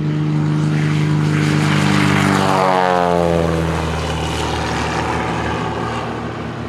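Cessna 182 Skyline's six-cylinder piston engine and propeller at power in a low flypast. The drone drops in pitch as the plane passes, about three seconds in, then fades slowly as it climbs away.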